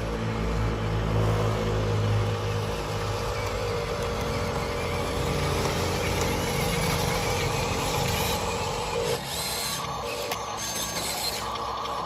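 Small electric motors and gearboxes of radio-controlled construction models running with a steady whirring hum, which changes and drops away about nine seconds in.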